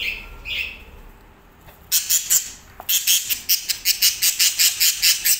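Green parakeet calling: a couple of faint chirps, then from about two seconds in a rapid run of harsh, high squawks, about five a second.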